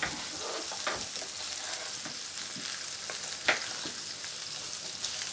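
Burgers sizzling in a frying pan on a gas hob, with a few sharp clicks of a utensil against the pan as they are turned. The loudest click comes about three and a half seconds in.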